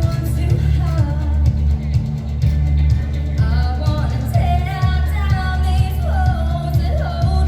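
Upbeat rock-pop song with a male singing voice over a steady bass line and drums.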